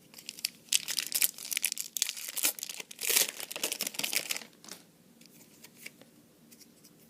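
A trading-card booster pack's wrapper being torn open and crinkled in the hands, a dense crackling that lasts about four seconds and then stops, leaving a few faint clicks.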